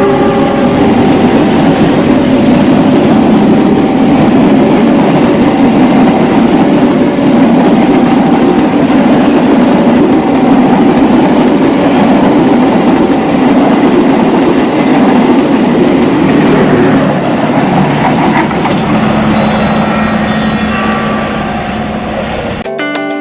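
Train passing close by at a railway level crossing: a loud, steady rumble of wheels on rails with clickety-clack, easing off in the last few seconds. Guitar music cuts in right at the end.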